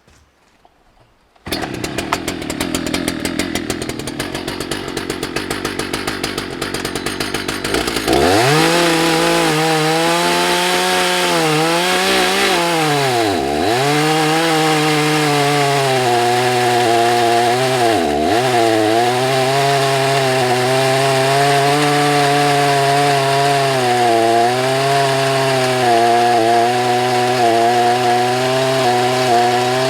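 Husqvarna 181SE two-stroke chainsaw starting about a second and a half in and idling with a fast, even beat. Near eight seconds it is opened up to full throttle and runs at high revs cutting into a large beech log, its pitch dipping sharply twice as the chain loads up in the wood before settling steady.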